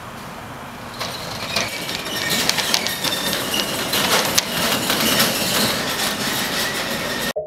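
Metal roll-up shutter door being hauled up: the slats rattle and clatter with thin squeals, the din growing louder from about a second in and cutting off suddenly near the end.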